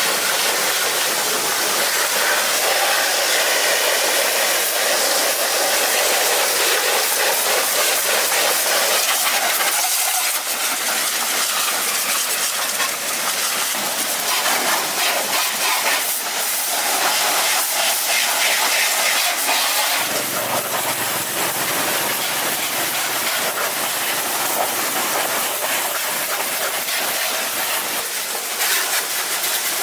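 A steady, loud hiss that wavers slightly, with no clear tone or rhythm.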